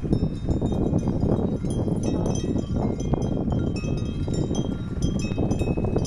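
Small metal bells, of the kind hung on grazing horses, ringing irregularly with short clear high notes over a steady low rumble.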